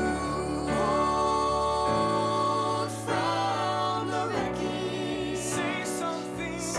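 A recorded song played over a hall's sound system: singers holding long notes with vibrato over a steady instrumental accompaniment.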